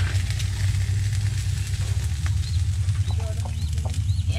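A steady low drone, with a few faint short high chirps in the second half.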